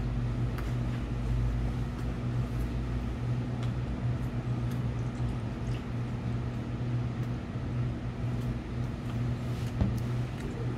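Steady low machine hum, such as a fan or refrigeration motor, with a few faint clicks over it.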